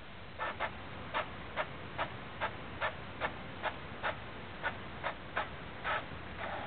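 Printer running, giving off a regular train of short mechanical clicks, about two to three a second.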